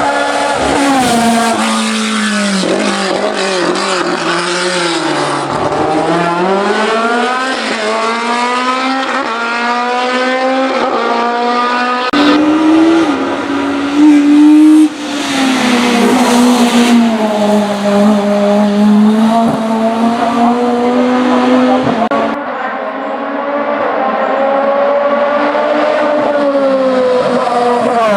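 Hillclimb race cars driven flat out, engines revving up and down through the gears, the pitch dropping at each shift and climbing again. The sound switches abruptly to another car a little under halfway through and again about three quarters through, with the loudest stretch in the middle.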